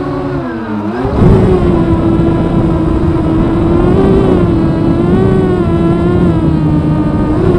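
250-size FPV quadcopter's electric motors and propellers whining, heard through its on-board camera. The pitch sags about half a second in, picks back up near the one-second mark, then holds fairly steady with slight wavers.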